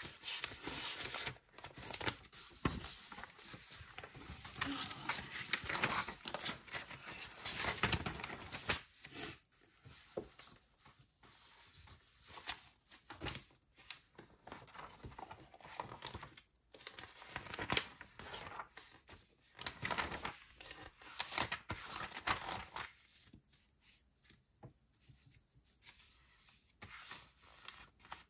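Paper rustling and crinkling as sheets are handled, in irregular bursts that are busiest for the first nine seconds and then come sparser.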